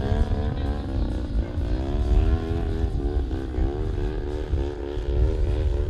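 Engine of a radio-controlled aerobatic model plane in flight, its pitch rising and falling again and again as it flies its manoeuvres. A heavy low rumble runs underneath.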